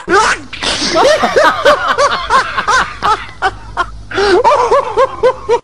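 Laughter: a string of rhythmic 'ha-ha' pulses, about three or four a second, breaking off briefly a little past the middle and then resuming.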